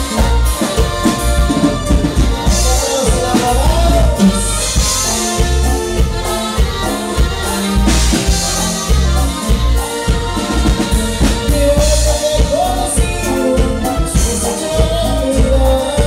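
Live norteño band playing loud dance music: a steady drum and bass beat with accordion and singing.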